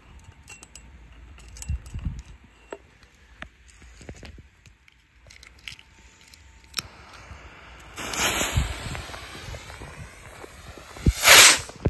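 Scattered handling clicks and steps on grass and leaves, then about eight seconds in a lit fuse starts hissing and sputtering. Near the end an ABA 'Blitz und Donner' firework rocket lifts off with a loud rushing whoosh.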